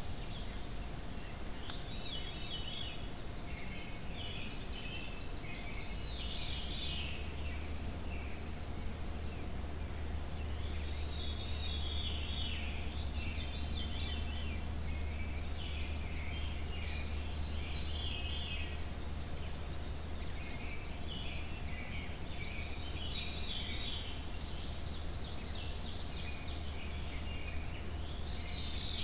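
Songbirds singing in a leafy forest, short high-pitched song phrases repeated every few seconds, over a steady low hum.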